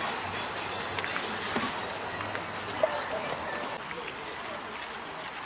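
Insects, crickets or similar, chirping in a dense, steady high-pitched chorus. The chorus drops in level about four seconds in.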